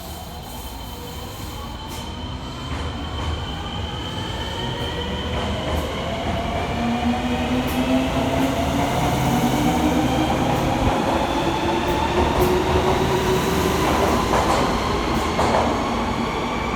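Fukuoka City Subway 1000N series train pulling away, its VVVF inverter and traction motors whining in several tones that climb steadily in pitch as it gets louder, with a few short clicks near the end. The uploader takes this odd noise for a sign of a deteriorating VVVF inverter.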